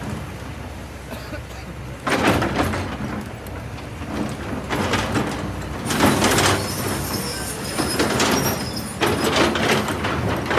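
A Kobelco SK200 excavator's diesel engine runs steadily while rocks and sand clatter and pour in several loud bursts. The longest burst starts about six seconds in and lasts some three seconds.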